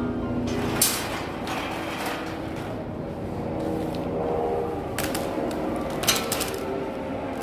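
Metal supermarket shopping cart pulled from a row of nested carts, rattling and clanking, with a plastic shopping basket set onto it; sharp clanks about a second in and again around five and six seconds.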